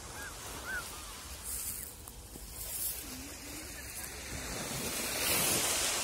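Small sea waves breaking and washing up a pebble shore, the wash growing louder about five seconds in.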